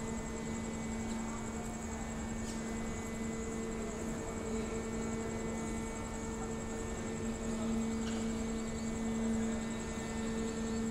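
Wagon tippler machinery running with a steady, even hum and a faint high whine above it.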